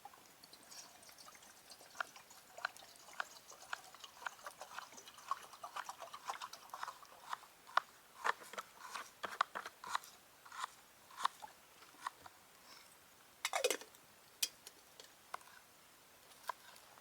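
A run of small, irregular crunches and clicks close to the microphone, thickest in the middle, with one sharper cluster and a short falling squeak about thirteen and a half seconds in.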